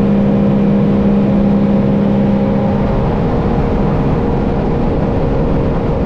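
Sea-Doo Explorer Pro jet ski engine running flat out at wide-open throttle, about 8000 RPM, under a loud rush of wind and spray. Its steady engine tone fades into rougher noise about halfway through.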